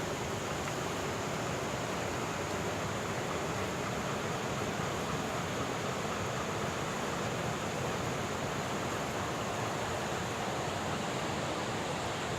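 A steady, even rushing noise with no tune, voice or separate events.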